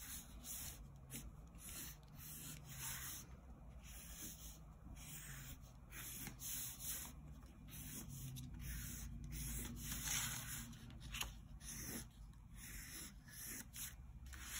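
Pencil scratching faintly on paper in a series of irregular short and longer strokes while drawing leaf outlines.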